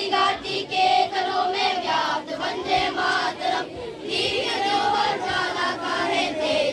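A group of schoolchildren singing together in chorus from song booklets.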